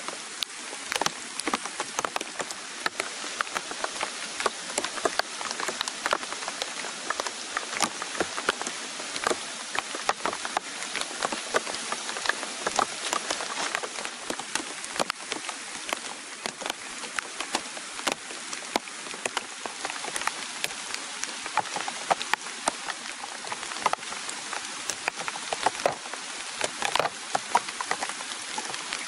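Heavy rain falling on a plastic tarp and surrounding leaves: a steady hiss dotted with many sharp drop strikes.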